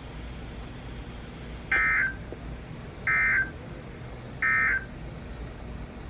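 NOAA Weather Radio's end-of-message data signal, three short bursts of digital two-tone warble about a second and a half apart, over a low steady hum. These are the SAME code bursts that close the broadcast severe thunderstorm warning.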